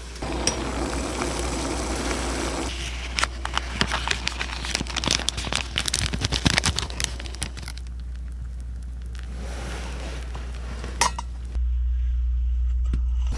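Crinkling plastic packaging and light clinks of tableware as a packet of dried bonito flakes is opened and shaken into a paper cup of instant soup. Near the end the sound changes to a steady low hum.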